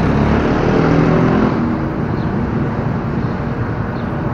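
Motorcycle engine running at low speed with a steady rush of road and street traffic noise; the engine's hum is clearest in the first couple of seconds.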